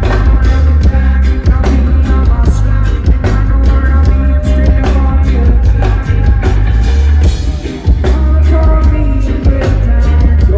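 Reggae band playing live amplified: a heavy, steady bass line under drums and guitar, with a short dip in loudness about three quarters of the way through.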